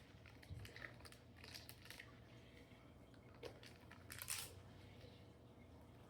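Faint crinkling and tearing of a small plastic wrapper being opened by hand, in short scattered crackles, the loudest a little past four seconds in.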